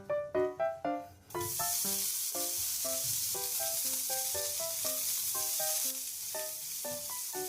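Food frying in hot oil in a pan, a steady sizzle that starts suddenly about one and a half seconds in, under background music with short plucked notes.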